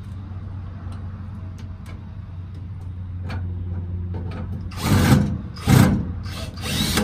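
Cordless drill driving screws through L brackets into the truck, run in three short bursts in the second half over a steady low hum.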